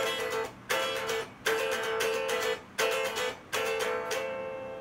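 A riff on a plucked string instrument: choppy strummed chords, each cut off short, then a final chord left ringing and fading near the end.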